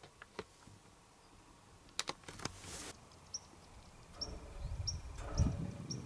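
A few sharp clicks and a brief rustle, then from about four seconds in, irregular thuds and scuffs of boots on the ladder rungs and frame of an elevated steel-legged box hunting blind as a person climbs down.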